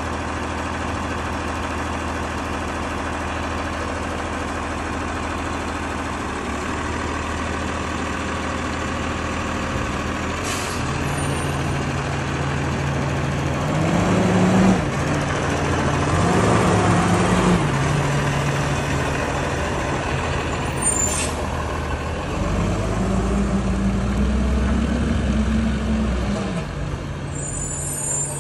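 Automated side-loader garbage truck's diesel engine idling steadily, then revving up in spells and settling back twice, with short air-brake hisses about ten seconds in and again around twenty seconds.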